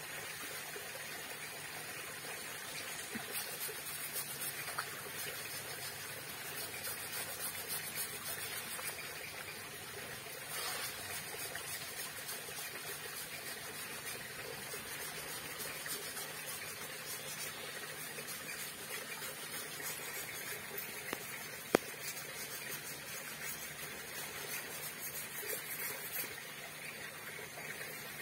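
Water from a garden hose splashing and trickling onto an elephant's foot and the wet ground, a steady running-water sound. A single sharp click stands out about three-quarters of the way through.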